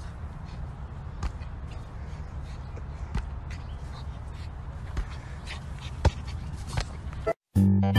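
A ball being struck outdoors: a sharp thud every second or two over a steady low rumble. Near the end the sound cuts out briefly and organ music begins.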